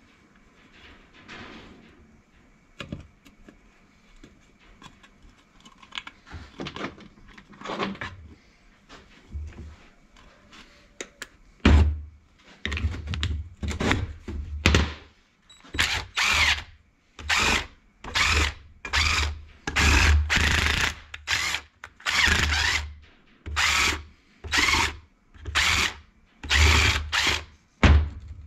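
Metal parts and tools being handled with scattered clicks and knocks, then a handheld power tool run in about a dozen short bursts, each half a second to a second long, as bolts on the gearbox casing are driven in.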